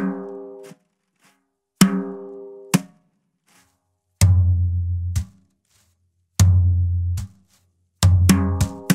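Tom-toms struck with fat bundle brushes, each note left to ring briefly and then stopped dead by pressing the brush onto the head: open and closed sounds. A higher tom sounds twice, then a lower tom, with a quicker run of strokes near the end.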